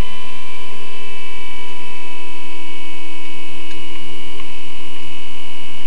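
Loud, steady electrical hum and whine made of several fixed tones, from the rally truck's cockpit electronics while the truck stands still and its engine is not heard.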